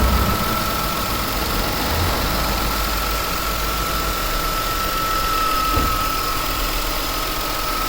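2000 Nissan Maxima's 3.0-litre V6 idling steadily before it has warmed up, with a thin, steady high whine over the engine note. At this stage it runs without the grinding knock it develops once hot.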